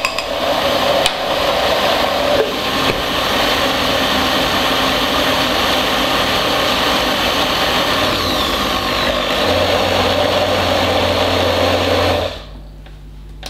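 Countertop blender running at full speed, churning a thick basil pesto. It cuts off sharply about twelve seconds in.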